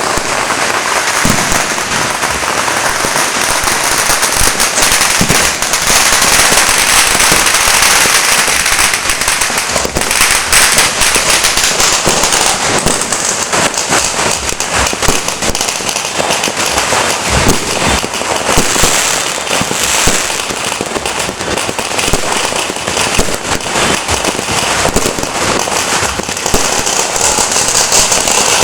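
Dense, continuous crackle and popping of New Year firecrackers and fireworks, with scattered louder bangs.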